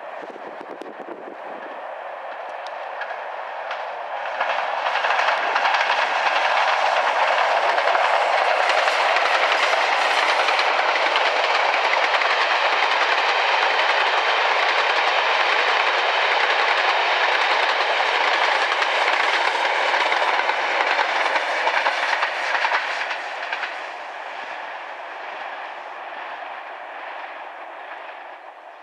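Diesel-hauled passenger train of Pullman coaches running past close by, its wheels running on the rails. The sound builds about four seconds in, holds steady while the coaches go by, then fades away near the end.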